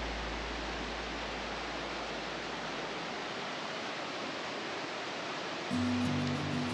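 Steady, even rushing noise without any clear tones. A low music bass fades out over the first few seconds, and music starts again near the end.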